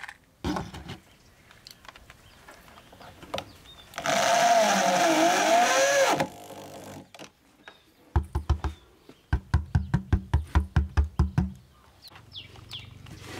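Cordless drill driving a screw to fasten a 15-inch speaker driver into the subwoofer cabinet: the motor whines for about two seconds, its pitch wavering as the trigger is worked. Later comes a rapid run of low thuds, about six a second, with a short break.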